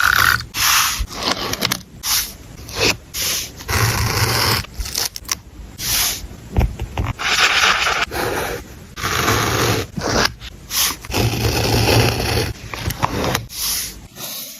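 Paper and stationery being handled and rubbed close to the microphone while a journal page is collaged: a run of scratchy scraping strokes of uneven length, one after another.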